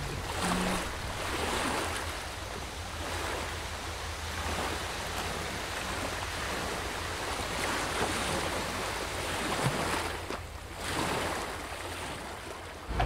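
Waves washing ashore, a noisy wash that swells and eases every second or two, over a low steady hum.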